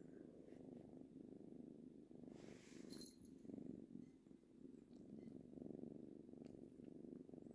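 Tabby kitten purring steadily, a low, fine-grained rumble that swells and fades in a slow rhythm: a contented purr.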